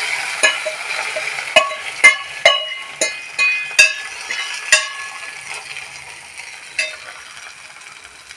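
Hot oil tempering sizzling in green pea curry, the sizzle fading away. A metal spoon clinks and scrapes against the steel pans about eight times, mostly in the first five seconds.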